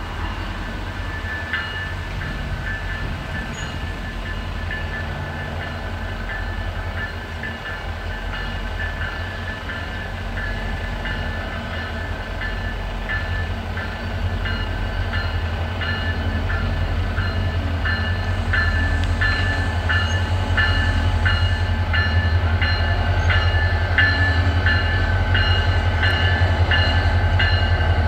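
Pair of EMD-based NGT26CW-3 diesel locomotives approaching, the low diesel engine rumble growing steadily louder, with a steady high whine over it. In the last third the wheels click quickly over rail joints and switches as the locomotives draw near.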